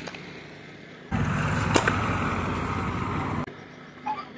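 An air rifle shot: a single sharp crack about two seconds in, over a loud rushing noise that starts and stops abruptly.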